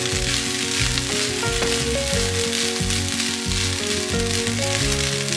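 Fried rice sizzling steadily in a hot pan, with background music playing over it.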